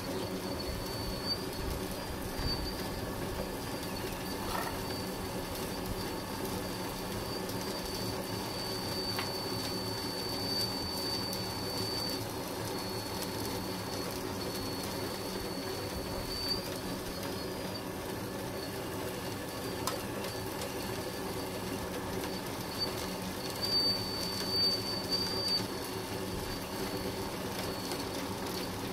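Hydraulic pump of a Lesu PC360 RC excavator running with a steady hum and a thin high whine. The whine grows louder in a couple of stretches as the boom, bucket and slew are worked.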